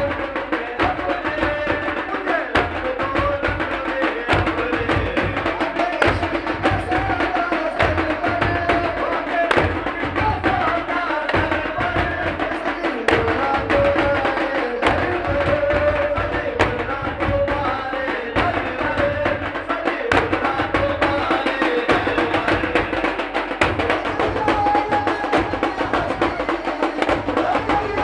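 Devotional procession music: hand-held frame drums beaten in a fast, steady rhythm, with a wavering melody line above them.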